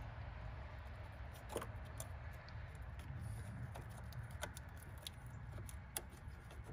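Faint scattered clicks and light taps of hands handling a plastic electrical connector and its wiring harness, over a low steady rumble.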